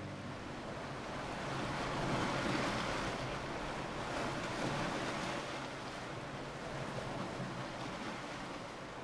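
Sea waves washing in a steady rush of surf that swells a few seconds in, then slowly fades.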